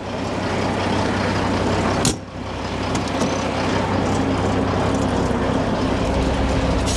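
Heavy diesel truck engine running steadily, with a deep hum and a dense rumble over it, briefly cut off and quickly back about two seconds in.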